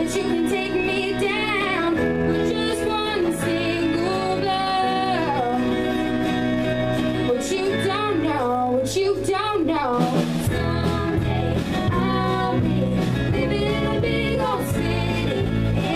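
Live female vocal, a young woman singing a song into a microphone with acoustic guitar accompaniment.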